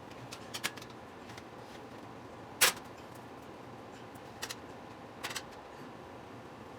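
Scattered clicks and knocks of kitchen handling: a few light clicks, one sharp knock about two and a half seconds in, then two quick pairs of clicks later on.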